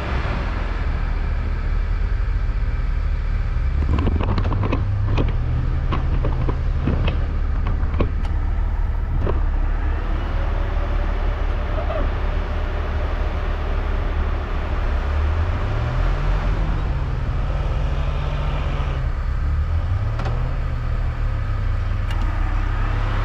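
Jeep driving, its engine running steadily with the revs rising and falling a few times. A scatter of sharp knocks and rattles comes between about four and nine seconds in.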